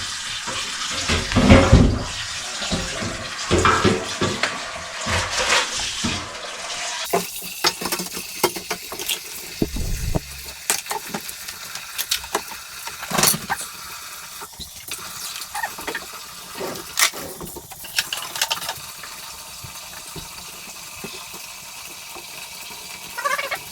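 Kitchen tap running into the sink while dishes are washed, with dishes and pots knocking together; the water shuts off about seven seconds in, leaving scattered clinks and knocks of dishes being handled.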